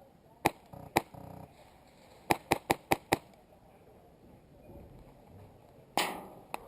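Airsoft guns firing: two single shots about half a second apart, then a quick string of five shots, and a louder sharp crack near the end.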